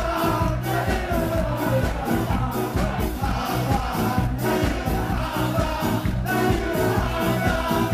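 A ska band playing live, with several vocalists singing over a steady beat.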